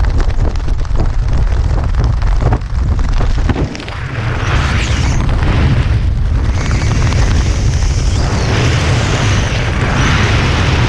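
Wind buffeting the camera microphone under an open parachute canopy: a loud, steady rumble with rough hiss over it, easing briefly about four seconds in.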